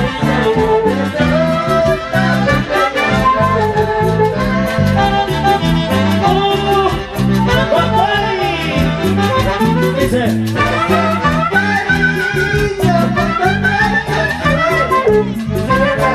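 Live dance music from an Andean orquesta, played loud, with several melody instruments over a steady beat.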